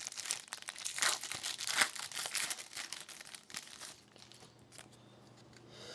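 Foil hockey card pack being torn open and crinkled, with the cards handled, in irregular rustles for about four seconds before it goes quiet.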